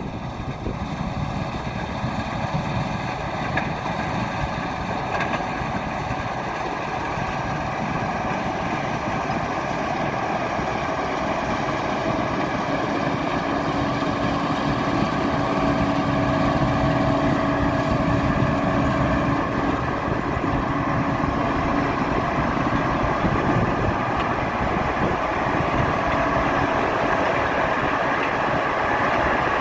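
Heavy diesel harvest machinery, a combine or grain truck, running steadily, with a faint steady hum for several seconds in the middle.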